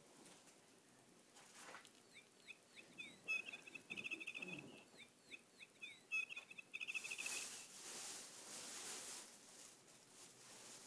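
Faint bird-like chirping from a feathered toy bird: two near-identical runs of quick sweeping chirps a few seconds apart, each ending in a fast trill. Soft rustling follows as the cat chews and paws at the feathers.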